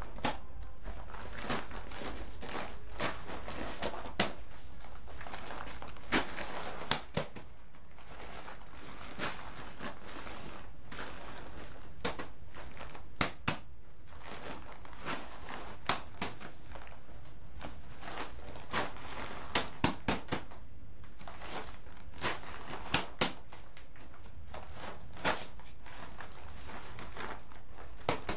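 Plastic-sacked bags of rice being lifted and stacked: crinkling plastic, with scattered sharp knocks as bags are handled and set down.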